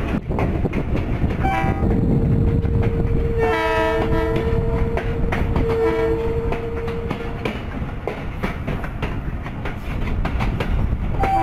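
Moving train's coaches rumbling and clattering over the rails, while the locomotive's horn sounds: a brief toot, then a long steady blast of several seconds that thickens into a fuller chord partway through. Another horn blast starts near the end.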